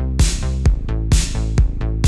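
Electronic dance music with a steady four-on-the-floor kick about twice a second over a sustained bass line, with bright hissing accents between the beats.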